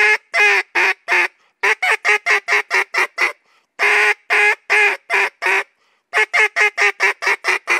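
Echo Timber duck call blown as a greeting call running straight into a chop-chop, twice over. Each round is a few long quacks that shorten and fall off, a short pause, then a fast run of about a dozen short choppy quacks.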